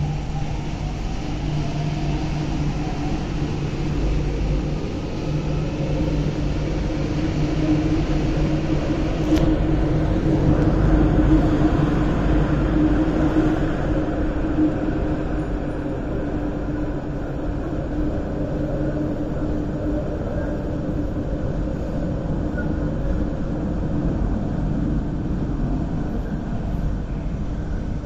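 MTR Q-Train, an electric metro train built by CRRC Qingdao Sifang, pulling out of an underground station and running into the tunnel. A steady low rumble and hum builds to its loudest about eleven seconds in, then slowly fades as the train draws away.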